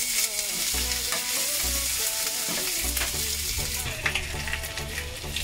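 Hot ghee sizzling and spitting in a frying pan as chopped seasoning is dropped in. It is then poured, still sizzling, into dal in a pressure cooker as a tempering.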